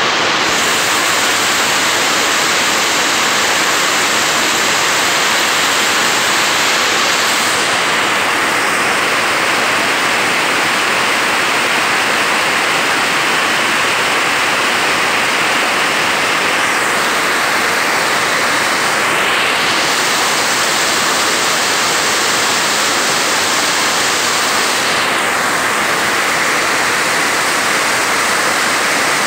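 Heavy rain pouring down in a dense, steady hiss, loud and unbroken.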